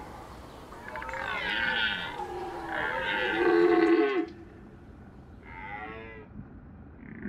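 Red deer stag roaring in the rut: two long, deep roars, then a fainter, shorter one about six seconds in.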